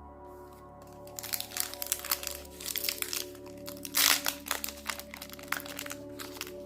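A foil trading-card booster pack wrapper crinkling as it is torn open, in quick crackles starting about a second in, with the loudest crackle about four seconds in. Soft background music plays under it.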